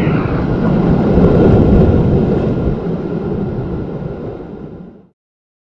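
Ocean surf washing over rocks, a loud rush with heavy wind on the microphone. It fades over the last second and cuts off about five seconds in.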